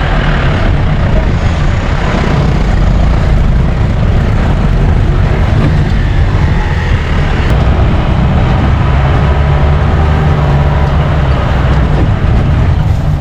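A jeep's engine running steadily as the jeep drives, a low drone whose pitch drifts slightly.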